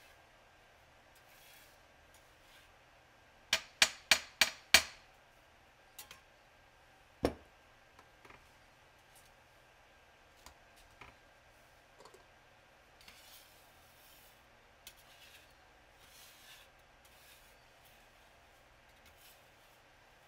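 Metal scraper working on a glass slab: five quick, sharp taps a few seconds in, a single knock a couple of seconds later, then faint, scattered scraping and rubbing strokes across the glass.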